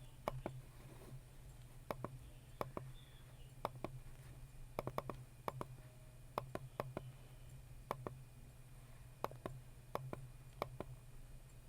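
Computer mouse clicking: single and double clicks at irregular intervals, some close together, over a steady low hum.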